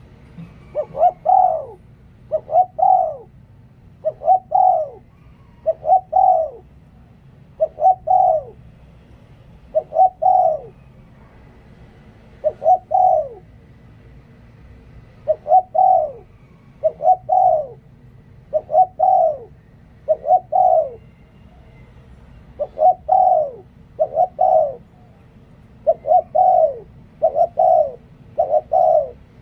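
A spotted dove cooing in the 'lio tan' style used for decoy doves. It repeats short phrases of a few descending coos, about one phrase every one and a half to two seconds, with a longer pause around the middle.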